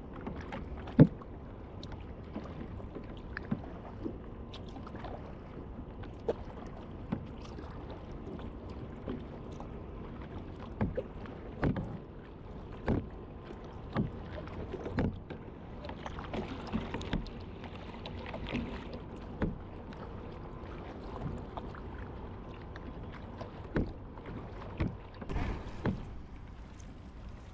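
Single kayak being paddled: the paddle dips into the water with a short splash or knock on the hull every second or two, over a steady low background noise.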